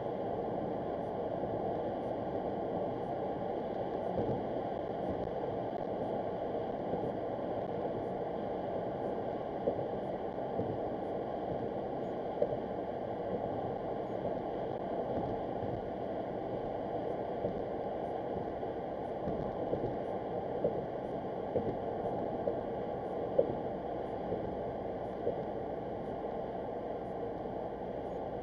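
Steady tyre and road noise of a car driving, heard inside the cabin through a windshield dashcam, with a few light knocks now and then.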